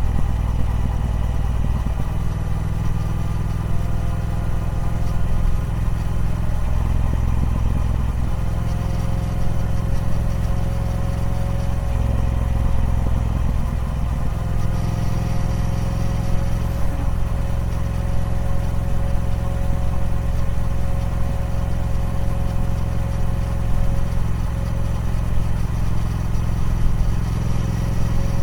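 Triumph Speed Twin 1200's parallel-twin engine running steadily through its stock exhaust, a low even note with small swells. A thin steady whine joins it about eight seconds in.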